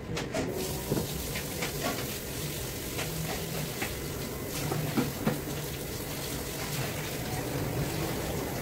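A steady hiss and low hum of background noise, with a few light clicks and scrapes as a metal palette knife scoops chocolate ganache from a tub and spreads it on cake layers on a steel table.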